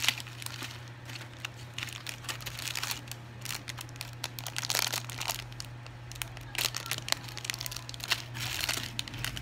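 Clear plastic bags of minifigure parts crinkling as hands handle them, in irregular crackles, over a steady low hum.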